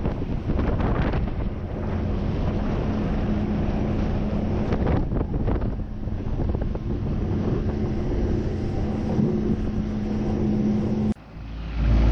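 Wind buffeting the microphone over the steady drone of a boat's outboard motor as the boat runs across open water. About eleven seconds in, the sound changes abruptly to a louder, deeper rumble.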